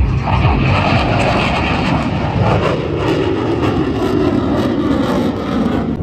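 Jet aircraft flying past low overhead: a loud rushing jet noise whose pitch falls as it goes by, from about halfway through.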